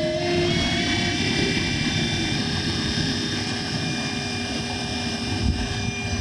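Servo drive motor and coupled DC shunt-wound machine running as a generator, a steady electric machine whine. Its pitch steps up a little during the first second or so as the speed is brought up toward 2000 rpm, then holds steady.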